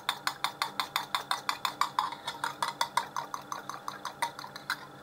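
A metal fork beating an egg white in a glass bowl: the tines tap the glass in a quick, even rhythm of about six clicks a second, stopping shortly before the end.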